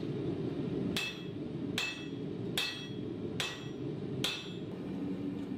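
Cross-peen hand hammer forging hot Damascus steel to spread the cleaver blade wider: five ringing blows about a second apart. A steady low hum runs underneath.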